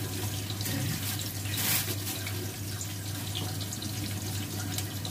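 Steady hiss like running water over a low steady hum, with a brief louder rush about one and a half seconds in.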